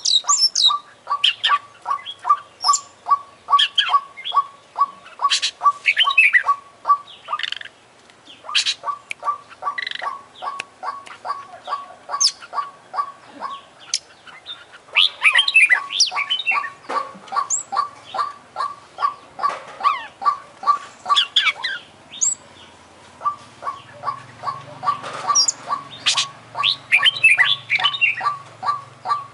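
Caged oriental magpie-robin (kacer) singing hard: a fast, even run of short chip notes about four a second, broken by higher whistled phrases and sweeping trills, with brief pauses about seven and twenty-two seconds in.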